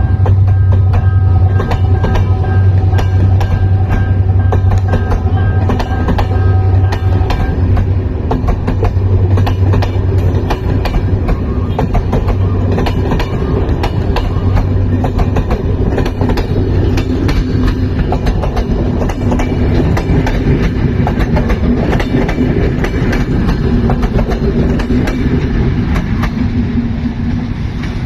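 A train leaving a station, hauled by a Henschel diesel locomotive. The engine's deep hum dominates for the first ten seconds or so, with a few high steady tones over it. Then the carriages roll past with a continuous clickety-clack of wheels over rail joints.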